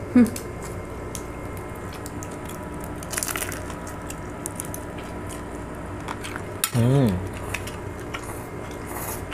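Eating sounds: a crunchy bite into crispy fried food about three seconds in, with forks and spoons clicking on plates. A short vocal sound comes about seven seconds in.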